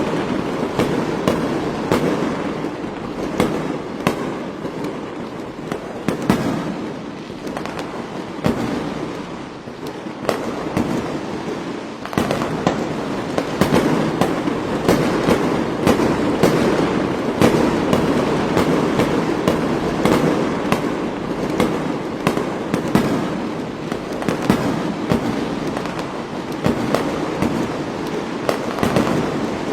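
Fireworks going off without pause: many sharp bangs and pops at irregular intervals over a continuous dense din, easing off briefly about a third of the way in.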